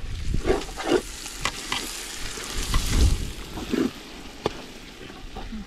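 Metal ladle stirring onions and greens frying in a large aluminium pot, the food sizzling steadily, with a few sharp clinks and scrapes of the ladle against the pot.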